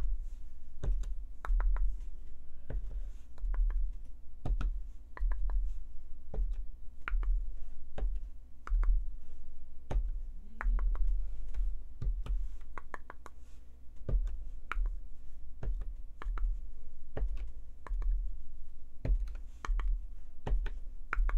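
Irregular light taps and clicks of a cardboard tube being dabbed into a paint tray and stamped onto paper on a tabletop, with dull thumps through the table.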